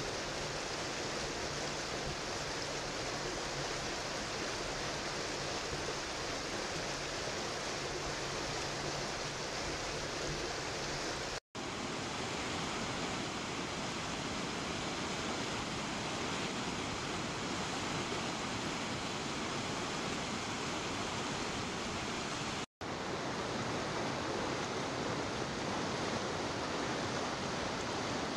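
Steady rushing of flowing water: shallow water running over gravel, then river rapids spilling over rocks below a weir. The sound cuts out for a split second twice.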